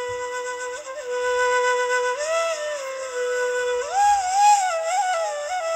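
Background music: a flute melody holding a long steady note, then rising and bending through an ornamented phrase in the second half.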